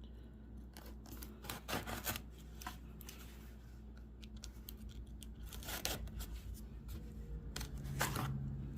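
Microtech Ultratech knife blade cutting open a shipping package, with short slicing and tearing strokes through tape and cardboard. The strokes come in a few bunches, clearest around two seconds in and again near the end.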